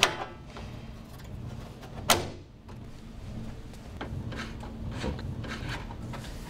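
A gutter connector snaps onto a Schlüter-BARIN-SR drainage gutter with two sharp clicks, one at the start and one about two seconds in. These are followed by faint ticking as a screwdriver tightens the screw on the gutter bracket.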